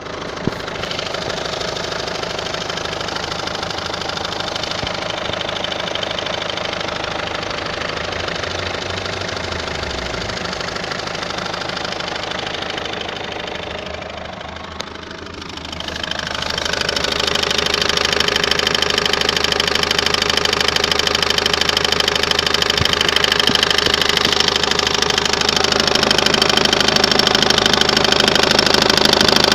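Citroen C5 1.6 HDi four-cylinder diesel engine running, with an extraneous noise from around the crankshaft damper pulley. The owner is unsure whether it is the damper pulley failing, the alternator's overrunning clutch or a bearing. The sound dips briefly about halfway through, then comes back louder and brighter.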